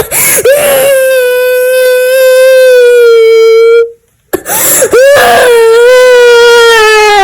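Loud crying: two long, drawn-out wails at a steady pitch, each starting with a catch in the voice, with a brief break about four seconds in.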